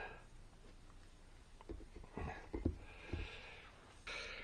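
Light workshop handling: a few faint knocks as parts are moved and set down on a workbench, with a short soft rustle near the end.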